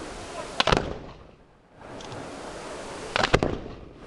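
Aerial firework shells bursting: a quick cluster of sharp bangs about half a second in and another a little past three seconds, with a steady hiss between them.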